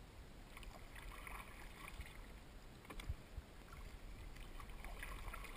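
Faint splashing and dripping of a kayak paddle dipping into calm water as the kayak is paddled, starting about half a second in, with a single knock near the middle.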